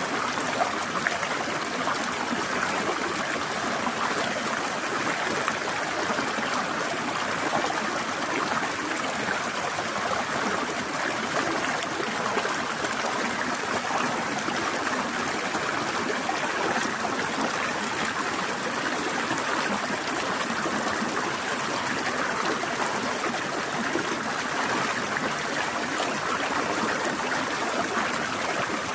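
A stream flowing and trickling over rocks: a steady rush of water with fine splashing and gurgling.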